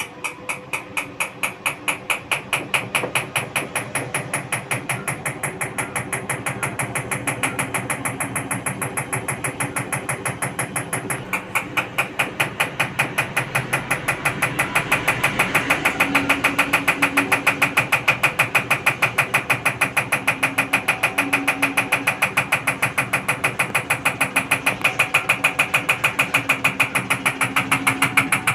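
IFB Executive Plus 10 kg front-loading washing machine running with a rapid, regular knocking, about three knocks a second, that speeds up and grows louder partway through: the abnormal noise the machine has developed.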